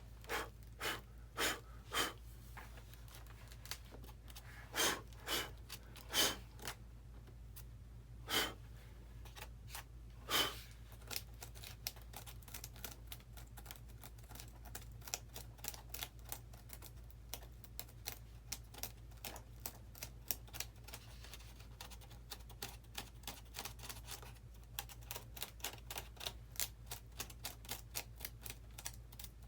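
Small flat-blade screwdriver chipping and picking at the model airplane's fuselage to clear a wire channel: a few sharp, irregular taps at first, then from about ten seconds in a long run of rapid light ticks.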